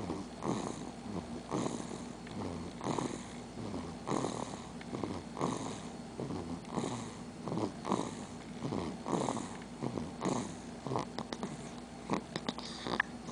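A baby snoring in sleep: a rattly, purr-like snore on each breath, about one every second and a bit, with a few small clicks near the end.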